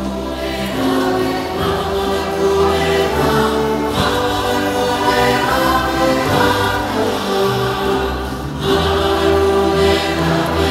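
Mixed choir singing in full voice, accompanied by a wind band whose tubas hold low bass notes under the sung melody.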